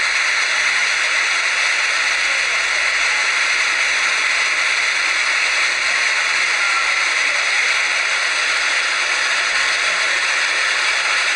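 Floodwater rushing and churning around furniture legs, a steady hiss.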